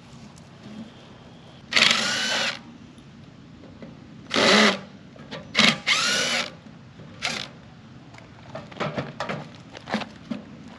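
Cordless drill-driver running in about five short bursts, each under a second, its motor pitch rising and falling within each burst, as screws are backed out of a mailbox on its post. A few faint clicks and rattles of handling follow near the end.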